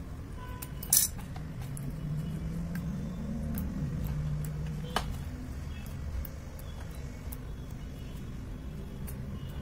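A blue plastic spoon and purple plastic bowl clacking: one sharp clack about a second in and a lighter tap about five seconds in, over a steady low hum that swells in the middle.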